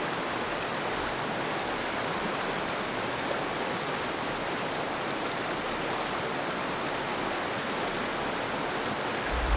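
Fast river current rushing over shallow riffles and around stones: a steady, even rush of water.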